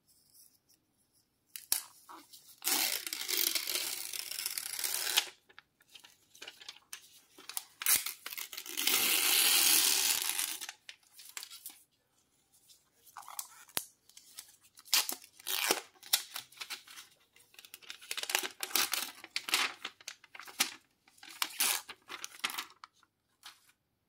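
Protective plastic film being peeled off the back of a smartphone, two long peeling rips about three and nine seconds in, followed by many short crinkles and rustles of the film being handled.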